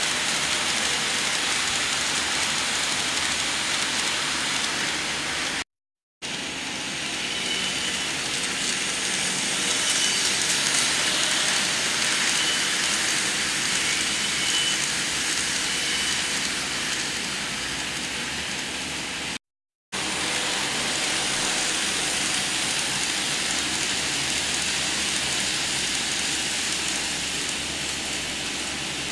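Kato N-gauge Amtrak passenger train rolling along model track: a steady rolling hiss of the small wheels on the rails. It cuts out briefly twice.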